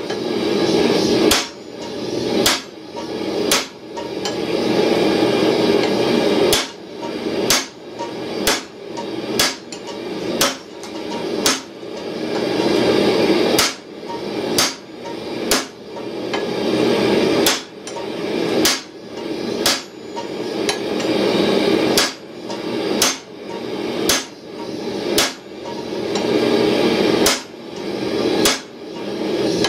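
Blacksmith's hammer striking a steel bar on an anvil: sharp metallic blows about once a second, sometimes two in quick succession, over a steady rushing noise.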